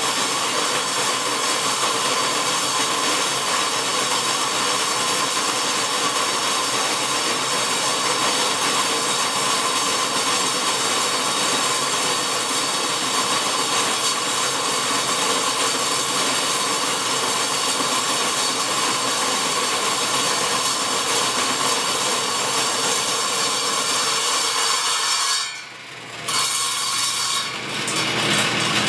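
Converted table saw with a 10-inch Oshlun metal-cutting blade running at about 1300 RPM, dry-cutting through 7/8-inch steel plate: a steady cutting noise with a held tone. The noise dips sharply near the end, then returns briefly.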